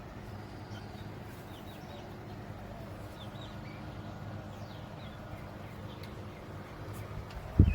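Faint, short bird chirps over a steady low hum, with a loud knock near the end.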